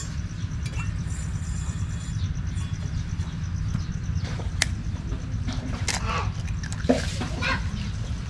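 Hen's eggs being cracked on the rim of a stainless steel bowl and dropped in, heard as a few sharp cracks, the clearest about four and a half and seven seconds in, over a steady low rumble.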